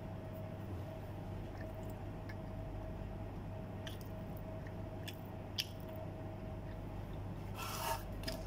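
Faint chewing of food over a steady low hum, with a few small clicks; near the end, a brief clatter as a metal cookie tin is handled.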